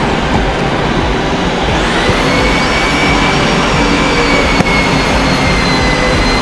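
Steady loud machinery rumble, with a high mechanical whine that rises in about two seconds in and then holds.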